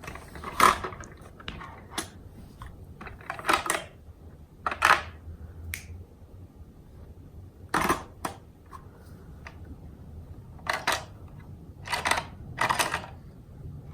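Plastic toy pieces being handled and moved about: scattered light clicks and several short scraping rustles, spread irregularly.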